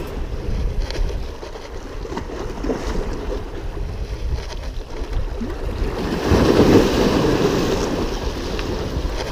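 Wind buffeting the microphone outdoors by the water, a steady rumbling noise with water sounds, swelling louder about six seconds in.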